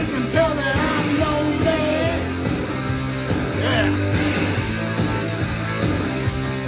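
Rock song with a male lead vocal and electric guitars playing from a vinyl record on a turntable, heard in the room.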